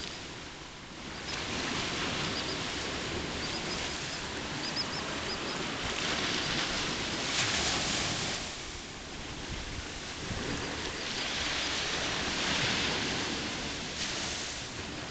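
Ocean surf washing on the beach, rising and falling in slow swells, with wind on the microphone. A few faint high chirps sound between about one and five seconds in.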